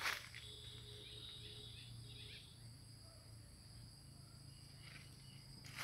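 Faint, steady high-pitched insect chorus holding several pitches at once, over a low steady hum. A soft footstep in dry leaf litter comes at the start and another near the end.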